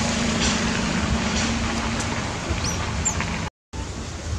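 Steady noisy outdoor background with a low hum through the first half and a couple of short high chirps about three seconds in; the sound cuts out for a moment near the end.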